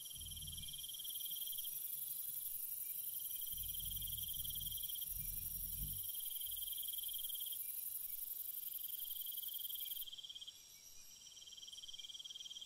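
Insects trilling steadily at a high pitch, in trills a second or two long with short breaks, over a constant high hiss. A few low rumbles come near the start and again between about three and six seconds in.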